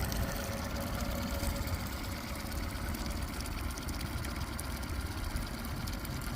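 Yamaha 8 hp outboard motor idling steadily.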